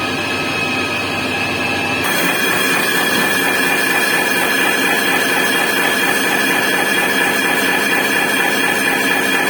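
Heavy-duty CNC lathe running and cutting metal, a steady machining noise with a high-pitched squeal from the tool on the workpiece. The sound shifts abruptly about two seconds in.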